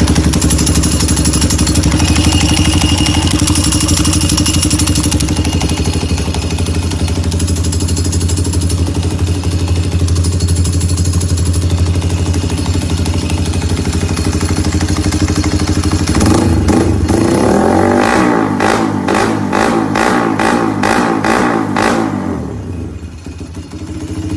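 Yamaha Y15ZR's single-cylinder four-stroke engine running steadily, then blipped on the throttle in a quick series of revs, about two a second, for several seconds about two-thirds of the way in, before settling back to a steady run.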